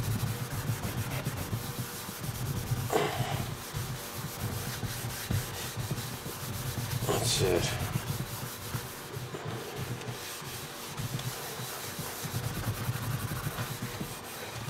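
A fine Scotch-Brite scouring pad scrubbing an oven pan coated in Easy-Off oven cleaner foam: continuous rubbing and scouring that swells and eases with the hand strokes, with two brief sharper scrapes about three and seven seconds in.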